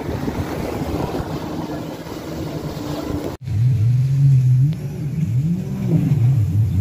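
Wind and water noise around a passing speedboat's engine; after a sudden cut about three seconds in, a motorboat engine runs with its pitch rising and falling unevenly, as if revved on and off.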